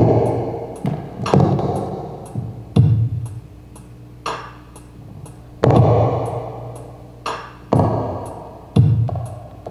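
A series of irregularly spaced heavy thuds, about seven in all, each ringing out for up to a second. Faint, evenly spaced high ticks run underneath.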